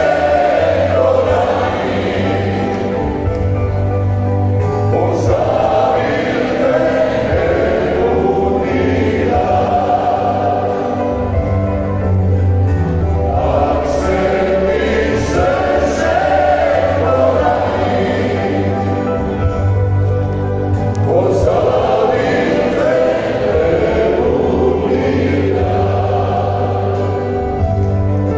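Croatian klapa male vocal ensemble with four tenors singing a song in multipart harmony, accompanied by an amplified band with guitars and a strong bass line. It is heard through the PA in a large arena.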